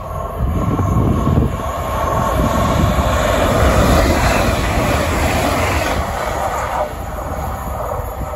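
Double-deck electric passenger train passing close by at speed: a rush of wheel and air noise over a faint steady whine, building over the first second, loudest about halfway, then cutting off abruptly near the end.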